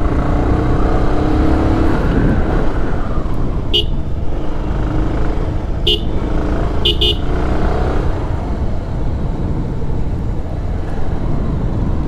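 Motorcycle engine running under way with steady wind rush, its note rising a little in the first two seconds. A horn toots in short beeps: once about four seconds in, once about six seconds in, then twice quickly about seven seconds in.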